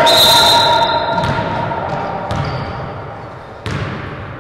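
A referee's whistle blows sharply for about a second at the start. A basketball then bounces three times on the hardwood gym floor, about a second apart, each bounce echoing in the large hall.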